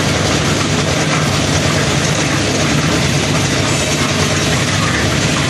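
Trailer-mounted concrete mixer with loading hopper running: its motor and turning drum make a steady, loud mechanical noise.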